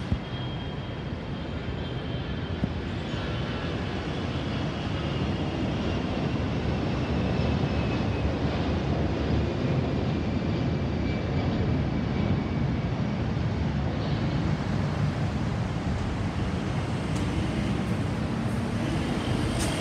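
Airbus A320-216 jet engines at climb power just after takeoff: a steady jet rumble, growing somewhat louder, with a faint high whine that slowly falls in pitch.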